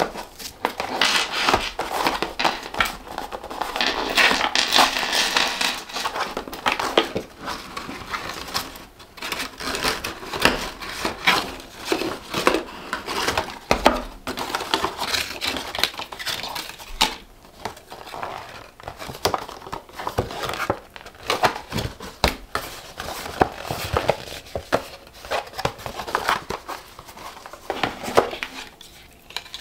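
Stiff paper and card packaging rustling and crinkling as it is unwrapped and handled, with many small taps and clicks. The rustling is most continuous in the first several seconds, then comes in shorter handling noises.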